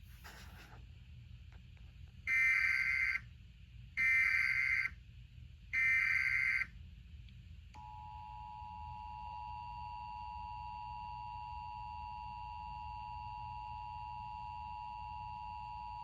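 Emergency Alert System tones. First come three harsh, screeching bursts of SAME header data, about a second each with a second between. Then the two-tone EAS attention signal sounds steadily for about eight seconds before a civil danger alert.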